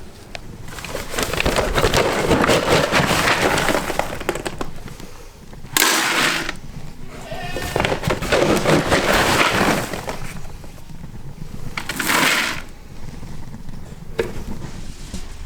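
Dense crackling and rustling as feed is put out for a crowd of Kiko goats, with sharp louder bursts about six seconds and about twelve seconds in.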